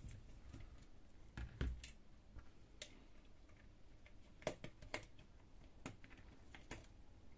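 Faint, scattered light clicks and taps of a screwdriver and plastic as the white plastic side cover is worked loose from a laser printer fuser unit.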